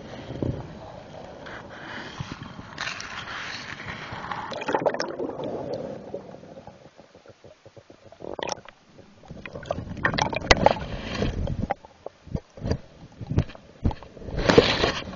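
Underwater camera scraping and knocking as it is dragged through the water and over the bottom, with water gurgling against the microphone. Irregular scrapes and bumps, a quieter spell about halfway, then a run of short knocks and a louder scrape near the end.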